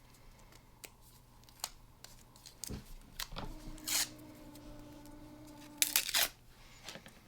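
Handling noise from unpacking a small action camera from its case: scattered clicks, rustles and a couple of louder scrapes. A steady low tone runs for about two and a half seconds in the middle.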